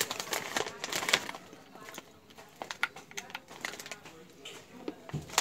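Slate pencil being bitten and chewed: a run of sharp brittle crunches and snaps, thickest in the first second and coming again in scattered bursts later.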